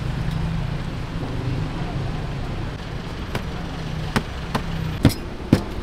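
Roti dough being slapped against a stainless-steel counter as it is stretched, about five sharp slaps in the second half, the last ones the loudest. Steady street traffic hum underneath.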